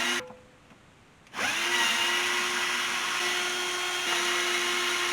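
A power screwdriver backs out the Torx screws holding a valve's front. Its motor gives a short burst at the start, then after about a second's pause runs again for nearly four seconds, rising in pitch as it spins up and then holding steady.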